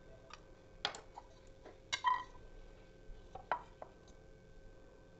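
A few short, sharp clicks and knocks of a knife, soaked stink bean seeds and bowls being handled on a wooden board. The loudest knock, about two seconds in, rings briefly, like a bowl being set down.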